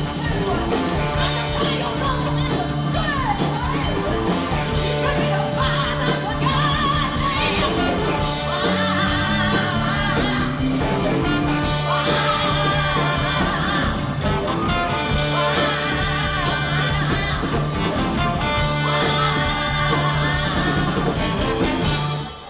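Live rock band playing with a woman singing lead over electric guitar, trombone and drums. The song stops just before the end.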